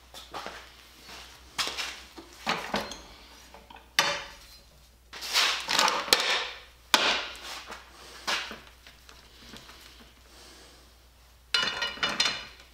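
Steel tools and a flat steel wheelbarrow rim clanking and rattling on a steel bench plate as they are handled, in irregular knocks and clatters. A louder burst of rattling near the end comes as the rim is fitted into a ring roller.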